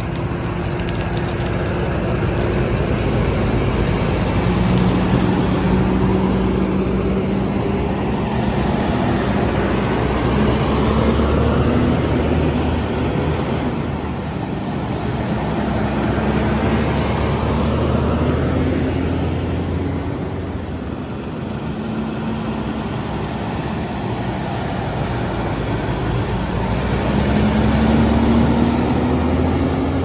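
Fire engines running and driving along the road, their engine note rising slowly twice, over a steady rushing noise.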